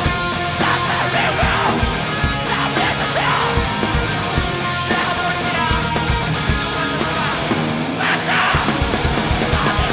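Loud live hardcore punk band: distorted electric guitars and bass over pounding drums, with shouted vocals.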